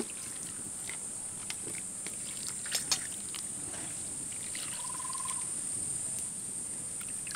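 Steady high-pitched insect chorus, with a few light clicks and a short steady note about five seconds in.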